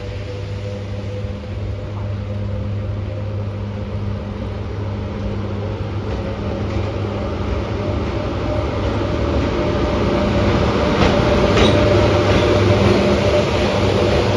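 EP1M AC electric locomotive pulling away with a passenger train and passing close by: a steady electric hum with a higher tone that rises slightly in pitch as it gathers speed, growing louder as it draws near. A few sharp clicks come about eleven seconds in.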